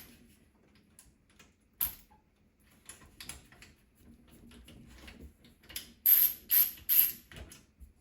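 Screws being worked loose from the PC case's power-supply bracket with a screwdriver: scattered small metal clicks, then three louder short grating bursts about six to seven seconds in.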